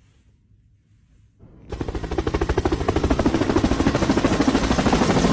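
A fast, rattling mechanical pulsing starts suddenly almost two seconds in and grows steadily louder.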